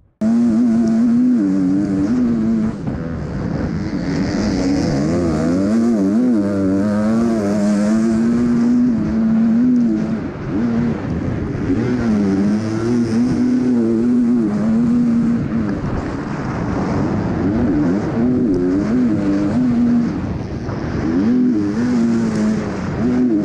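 Motocross bike's four-stroke engine, heard close up from the onboard camera, revving up and down continuously as the rider works the throttle through the corners and jumps of a dirt track. It cuts in suddenly just after the start.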